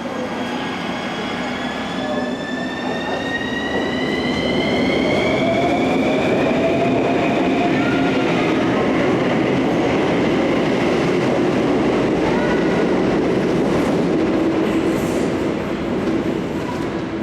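Bucharest Metro train pulling away: the electric motors' whine rises in pitch over the first few seconds, and loud steady running noise of the train on the rails builds up and holds.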